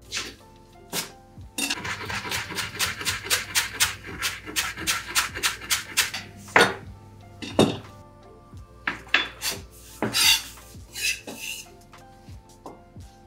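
Chef's knife chopping fresh parsley on a wooden cutting board: a quick, even run of blade knocks on the wood at about four or five a second, then a few heavier, slower chops and some scattered strokes and scraping as the parsley is gathered up.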